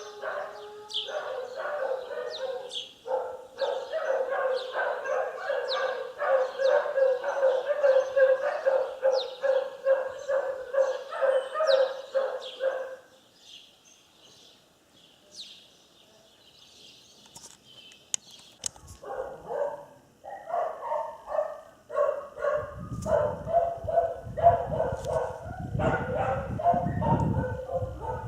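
A dog barking in a steady run, about two barks a second, stopping about halfway and starting again a few seconds later. Thin chirps sound above it throughout, and a low rumble joins in near the end.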